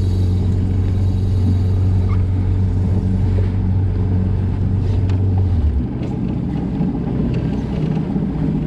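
Boat engine running with a steady low hum over a rumble of wind and water; about six seconds in the hum drops away, leaving the rumble.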